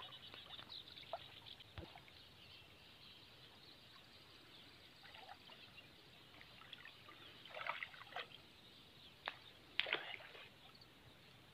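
Faint water splashing and sloshing as a wading man handles a fishing net in a pond, with a few short, sharper splashes, mostly in the second half.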